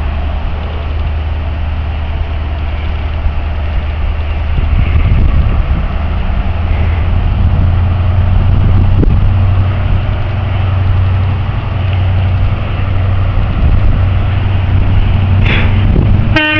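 Class 43 HST power car's MTU diesel engine working hard as the train pulls away: a deep steady drone whose pitch climbs slightly about halfway through. Right at the end the horn starts to sound.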